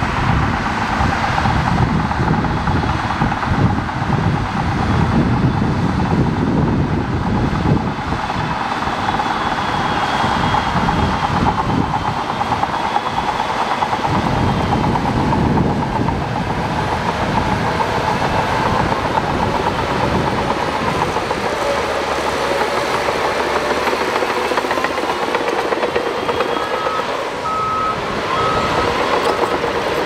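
Shantui DH17 crawler bulldozer running under load as it pushes soil with its blade. From about three seconds before the end, a reversing alarm beeps at an even pace.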